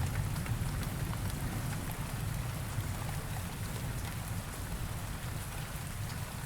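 Steady rain falling and pattering, with the low rumble of a thunder roll slowly fading away beneath it.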